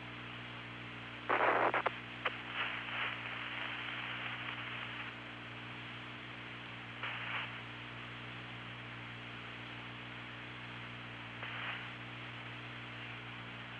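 Open radio voice-loop channel with a steady mains hum and hiss, broken by short bursts of static: a loud one about a second and a half in, then fainter ones later.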